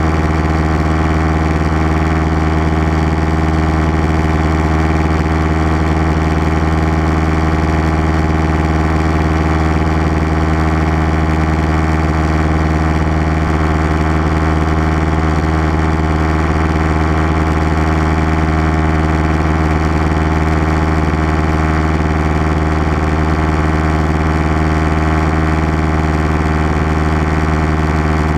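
Light aircraft's engine and propeller running steadily in cruise flight, a constant drone heard inside the cabin.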